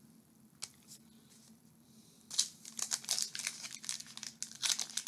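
Foil wrapper of a Topps Chrome baseball card pack crinkling as it is handled and opened, starting about two seconds in and running on as a dense crackle.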